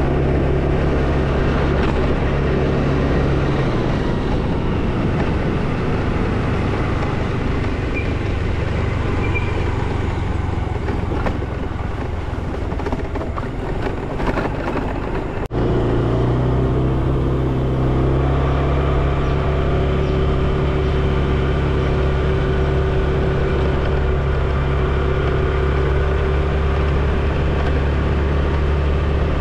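A vehicle engine running steadily on the move. The engine note changes at an abrupt break about halfway through.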